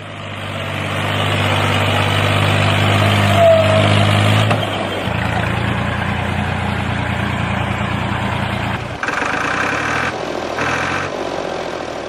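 Diesel tractor engine running steadily and growing louder over the first few seconds. Its note changes about four and a half seconds in, and it turns rougher and uneven near the end.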